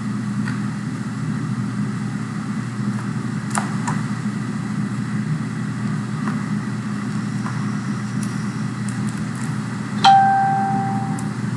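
A steady low background hum with a few faint clicks, as of a computer mouse. About ten seconds in comes a single sudden chime, one clear ding that fades away over about a second.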